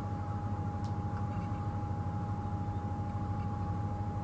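Game-drive vehicle's engine idling, a steady low rumble, with a constant high thin tone running alongside it.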